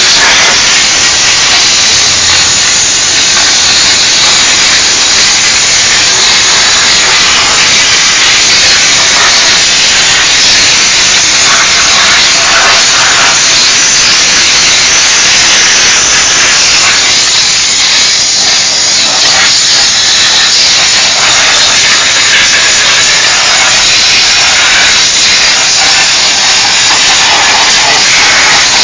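Diesel-fired steam cleaner's nozzle jetting steam with a loud, steady hiss.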